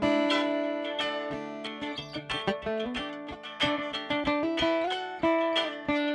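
Guitar playing a picked instrumental passage between sung verses of a country song, with many quick note attacks over ringing chords.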